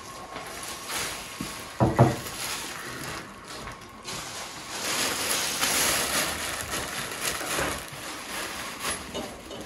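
Thin plastic carrier bag rustling and crinkling as flatbread is packed into it and the bag is pushed into a backpack, busiest in the middle of the stretch. A short, loud low thump about two seconds in.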